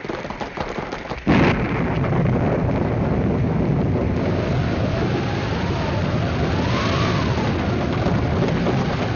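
A storm sound effect. A rapid clatter in the first second gives way to a sudden thunder crash about a second in, then steady heavy rain with a whistling wind that rises and falls.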